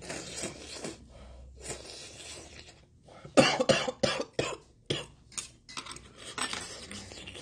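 A man slurping food off chopsticks, then a short run of loud coughs a little past the middle. After that come light clinks of chopsticks against metal pots and bowls.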